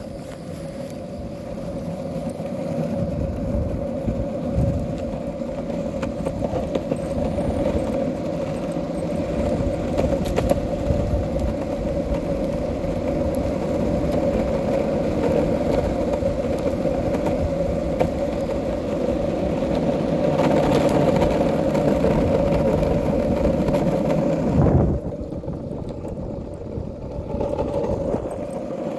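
Longboard wheels rolling over rough asphalt: a steady rumble with a humming tone, broken by occasional clicks. A loud knock comes near the end, after which the rolling is quieter.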